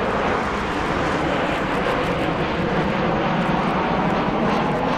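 Jet airliner engines, a loud steady rumble and roar of engine noise.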